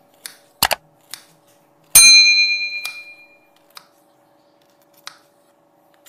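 Subscribe-button sound effect: a mouse double click, then a loud bell ding about two seconds in that rings out over about a second and a half. Soft knife taps sound now and then around it.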